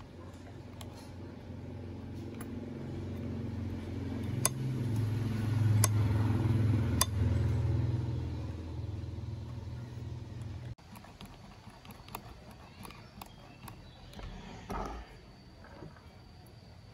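A low, engine-like hum builds up, stays loudest for a few seconds and then cuts off abruptly a little past the middle. A few sharp clicks sound over it, from small chainsaw parts being fitted by hand.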